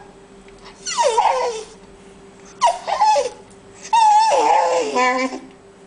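Wire fox terrier whining to be let out: three drawn-out whines that fall in pitch, about a second apart, the last the longest.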